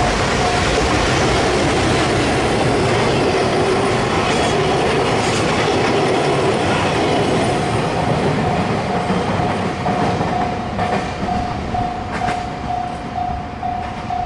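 A train rolling past a railway level crossing, with wheel clacks over the rail joints, while the crossing's electronic warning bell rings as a steady repeating tone. The train noise is loud and steady for the first half, then starts to thin out, with a few sharp wheel clacks near the end.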